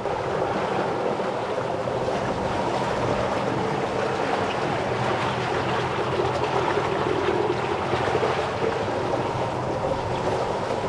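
Steady rush and splash of water along the hull of a wooden solar-electric boat under way, with no loud motor noise over it.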